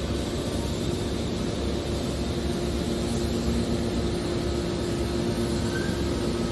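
Hydraulic car body baler running: a steady machine hum with two held tones over an even low rumble.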